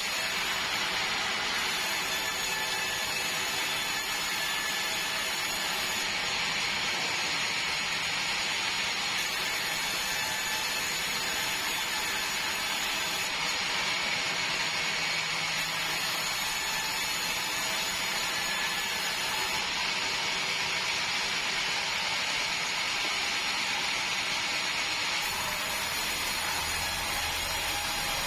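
Sawmill running as it cuts large meranti timber: a steady, even hiss with a faint whine.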